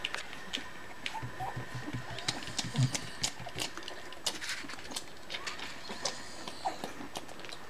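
Three-week-old puppies grunting and squeaking softly, with many small scattered clicks.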